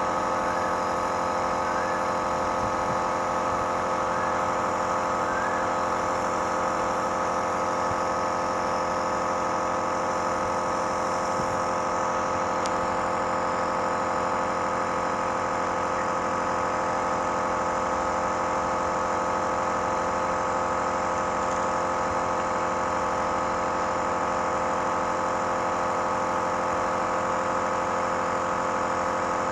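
Nebuliser's electric compressor running with a steady, unchanging hum, giving a child an inhaled treatment for a cough and cold.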